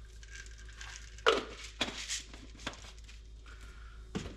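Handling noises: a handful of short, sharp knocks and rustles as ingredients and their packaging are picked up and set down.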